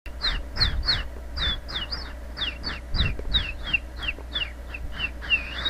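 A bird calling over and over in short chirps that fall in pitch, about three to four a second, with a low steady hum underneath.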